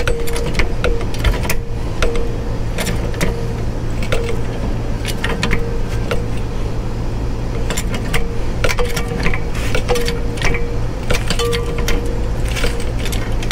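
Red two-ton hydraulic floor jack being pumped by its long handle to lift a car: repeated metallic clicks and rattles from the handle and pump, with a short squeak that keeps coming back with the strokes. A steady low hum runs underneath.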